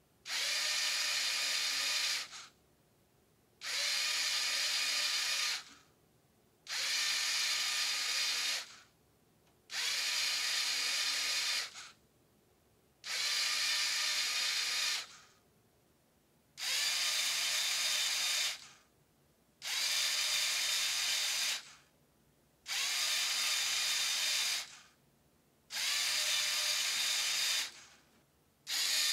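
A LEGO Technic motor and its plastic gear train whirring in runs of about two seconds, each followed by a pause of about a second, repeating roughly every three seconds. Each run turns the cams that switch the mechanical segment display to the next number.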